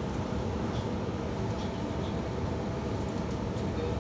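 Steady running noise of an H set (OSCAR) electric intercity train at speed, heard from inside the carriage: an even rumble from the wheels on the rails and the train in motion.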